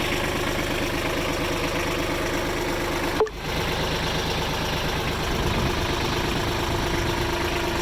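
Diesel engine of a 2001 Kubota B21 compact backhoe loader running steadily at idle. A short click and a brief dip in the sound come about three seconds in.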